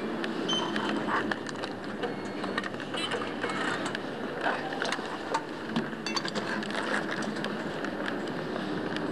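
Underground metro station ambience: a steady hum of the hall with many scattered clicks and clacks as a ticket turnstile is pushed through.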